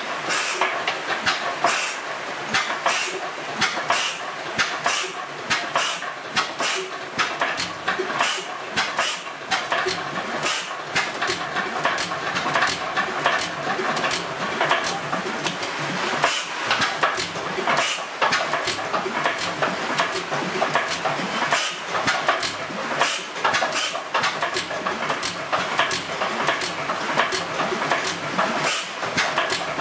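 Crossley Bros horizontal side-shaft stationary engine running after starting: a steady, uneven series of sharp clicks and knocks, about one to two a second, over the constant clatter of its valve gear and spinning flywheel.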